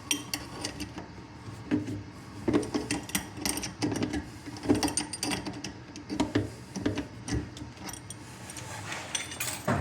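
Adjustable wrench tightening a faucet's plumbing connection nuts: irregular metal clicks and clanks as the wrench is fitted and turned.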